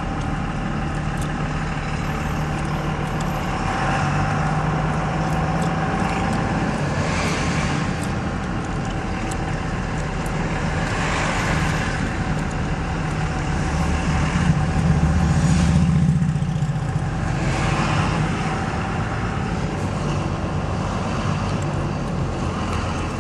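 Engine and road noise inside a moving car: a steady low engine hum over tyre rumble, swelling several times along the way.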